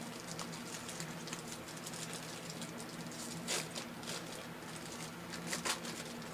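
Light rustling and small clicks of trading cards and their plastic holders being handled, with a couple of louder rustles about halfway through and near the end, over a faint steady hum.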